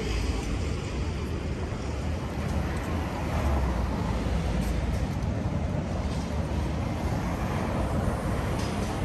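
Steady city traffic ambience: a continuous deep hum of vehicles with an even hiss over it.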